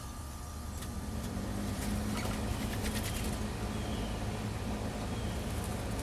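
Low, steady rumble of a passing road vehicle that swells about a second in, with a few faint, short high chirps from small birds and a quick run of light clicks.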